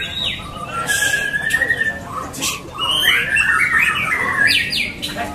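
White-rumped shama (murai batu) singing a fast, varied song of whistles and trills gliding up and down, with sharp clicks mixed in.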